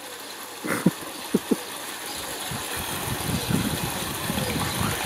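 A vehicle engine running, growing louder from about two seconds in, after a few brief sharp sounds near the start.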